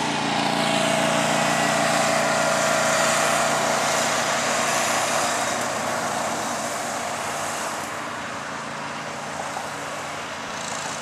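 A car passing close by on the road, its tyre and engine noise swelling and then fading away, over the steady low hum of a small engine.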